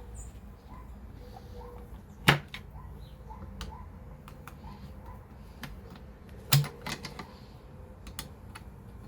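Clicks and knocks of a Tippmann Air Raid AR6BB airsoft rifle's parts being handled and fitted back together, with two sharp loud clacks about two seconds and six and a half seconds in and lighter ticks between.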